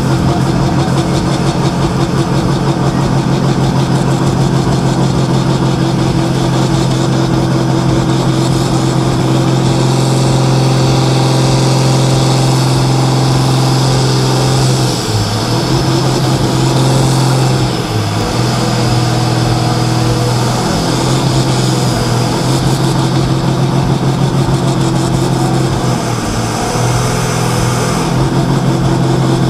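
Turbocharged diesel engine of a Deutz pulling tractor held at steady revs at the start line, building boost pressure before the pull, with the revs dipping briefly a couple of times about halfway through.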